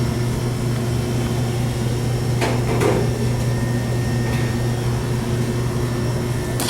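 Indoor blower motor of a Payne packaged air conditioner running with a steady hum, powered through a 24-volt jumper from R to G to check that the motor still works. Two short knocks come a little over two seconds in, and a click near the end.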